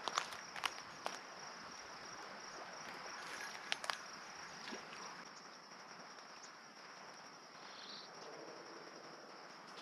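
Faint riverside ambience: a steady high insect drone over a soft wash of moving river water, with a few sharp light clicks in the first four seconds.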